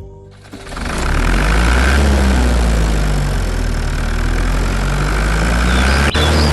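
A heavy vehicle's engine comes in about half a second in and runs steadily at idle, with a strong low hum. Birds chirp over it near the end.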